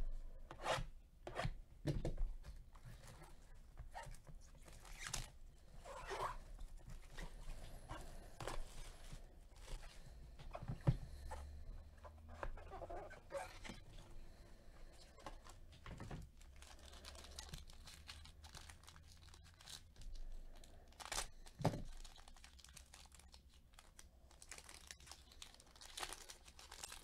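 A trading-card hobby box and its foil-wrapped pack being torn open and handled: scattered tearing, crinkling and light clicks of cardboard and foil.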